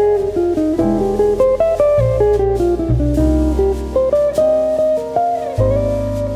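Instrumental background music: a plucked guitar melody of short notes over a low bass line that changes every second or two.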